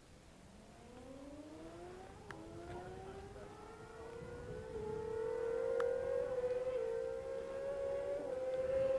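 High-revving sport-bike engine approaching at full throttle, its pitch climbing steadily with a short dip at each of about four upshifts, and growing louder as it nears.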